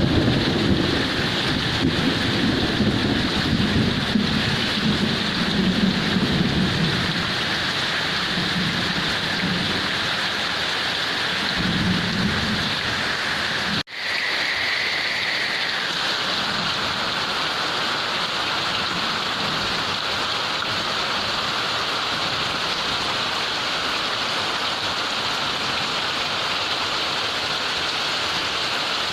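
Heavy rain falling steadily, with low rolling thunder through the first quarter or so and once more briefly shortly before the middle. About halfway the sound drops out for an instant, then the heavy rain goes on without thunder.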